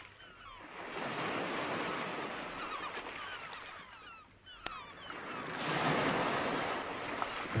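Waves washing in and drawing back in two long swells, with short high chirps over the wash and a single sharp click about two thirds of the way through.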